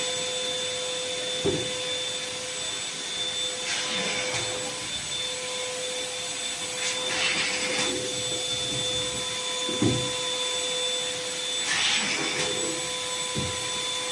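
Electric balloon inflator running steadily with a constant motor whine and blower hiss as balloons are filled. A few brief rubbing sounds from the balloons being handled come through over it.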